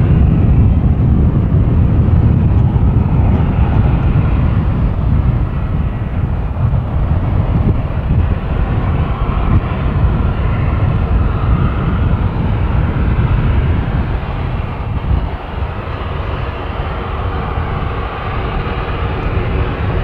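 Fairchild Swearingen Metroliner's twin turboprop engines running at taxi power: a steady, loud engine noise, heaviest in the low end, that eases a little in the second half.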